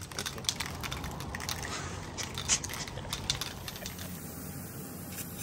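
Aerosol spray-paint can shaken hard, the mixing ball rattling inside in quick, irregular clicks as the paint is mixed before spraying; the rattling stops about four seconds in.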